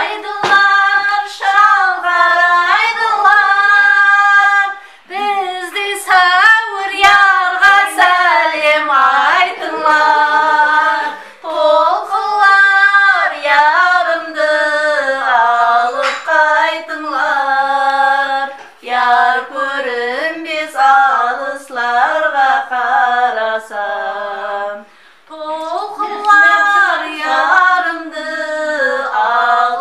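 A woman singing a Karakalpak folk song unaccompanied, in long notes that bend and waver in pitch, with short breaths between phrases.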